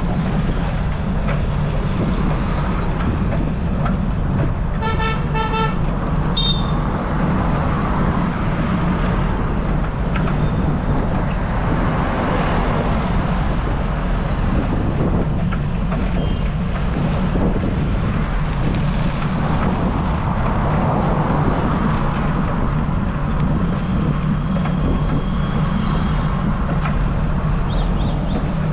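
Steady rumble of wind and road traffic heard from a moving bicycle, with a vehicle horn sounding two short toots about five seconds in.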